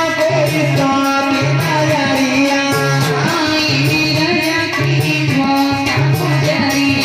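Indian devotional bhajan music with singing, over a steady repeating drum beat.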